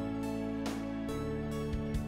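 Instrumental outro music: plucked notes and held chords that change a couple of times.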